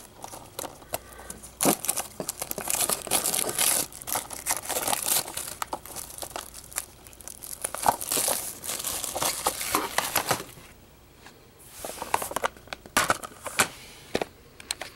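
Clear plastic shrink wrap being torn and peeled off a Blu-ray case, crinkling in irregular bursts, with a short lull about two-thirds of the way through.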